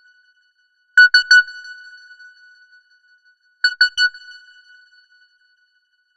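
A simple electronic ringtone: three quick beeps on the same high note, ringing out and fading, heard twice about three seconds apart.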